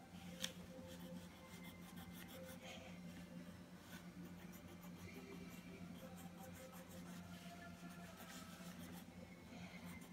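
Faint scratching of a wax crayon rubbed back and forth on paper, in quick repeated strokes, with one sharp tap about half a second in.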